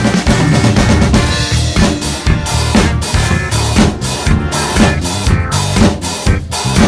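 Acoustic drum kit played in a steady disco-funk groove, with bass drum, snare and cymbals. It plays along with a backing track whose bass and other pitched instruments sound under the drums.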